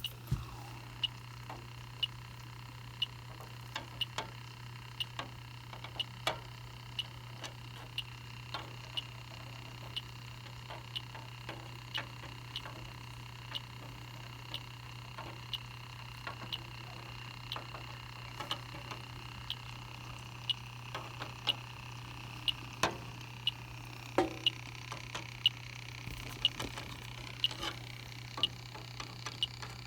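Electronic refrigerant leak detector ticking about once or twice a second, a little faster near the end, as its probe is swept over an evaporator coil searching for an R22 leak. A steady low hum runs underneath.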